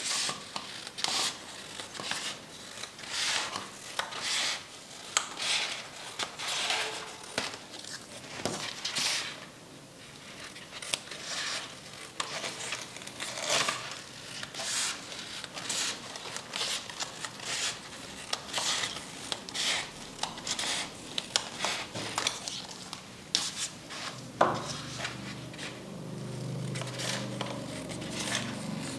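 Scissors snipping through a black craft foam sheet, cutting it into thin strips: a steady run of short, crisp snips at about one or two a second. A low hum comes in near the end.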